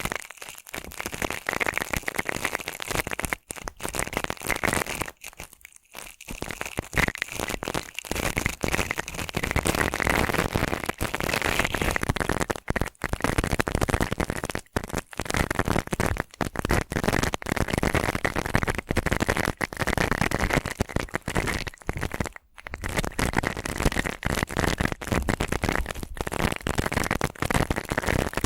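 ASMR brushing: a prickly-bristled brush scratching in continuous dense, crackly strokes, broken by a few short pauses.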